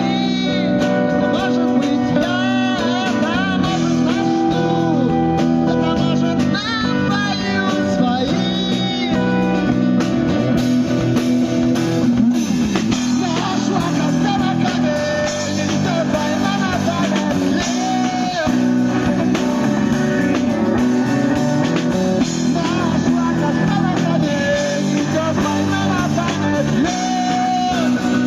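Live rock band playing: electric guitars and bass guitar with drums, a gliding melodic lead line running over the chords.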